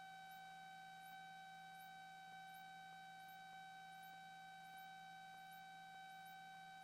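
Near silence with a faint, steady electrical whine: one constant tone with its overtones, and no engine noise heard.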